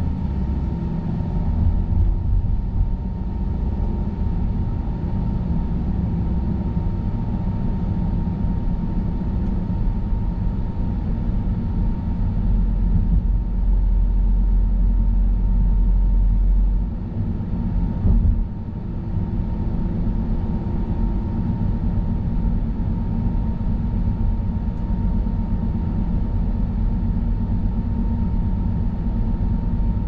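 Car driving on the road: a steady rumble of tyres and road noise with a faint, thin, steady whine. A heavier low rumble builds for a few seconds in the middle and ends with a single thump about eighteen seconds in.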